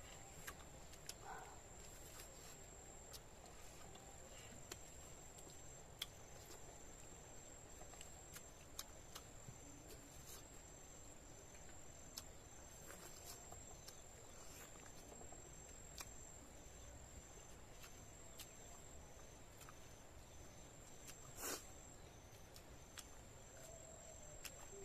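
Near silence: a faint steady high-pitched whine, joined from about a quarter of the way in by a faint evenly pulsing high tone, with scattered soft single clicks and taps.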